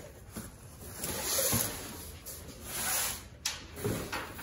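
A cardboard shipping box being cut open with a knife and handled: two drawn-out scraping, rustling swells of blade and cardboard, then a couple of sharp knocks near the end.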